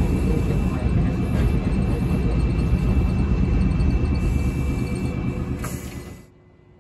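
Kumamoto City Tram 8500-series streetcar running on street track, heard from inside the cab: a steady low rumble of the wheels and its nose-suspended (tsurikake) direct-controlled traction motors. The sound fades out about six seconds in.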